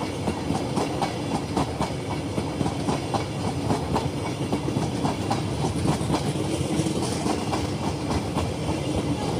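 Express train's passenger coaches rolling past at speed: a steady rumble with a rapid clickety-clack of wheels over rail joints.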